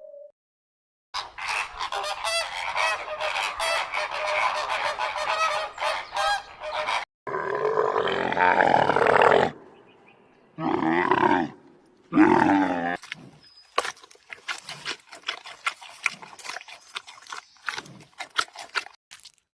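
Animal calls: dense rapid chattering for about six seconds, then one long loud call, two shorter calls, and more rapid chattering.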